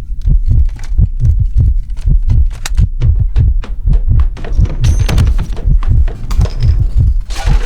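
Loud, rapid, rhythmic low thumping, about three to four beats a second, each thump with a sharp click on top.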